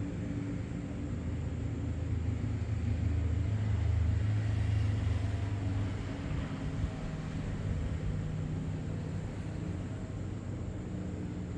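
Panasonic CS-YN9RKJ split air conditioner running with a steady hum, with a low rumble that swells and then fades about halfway through.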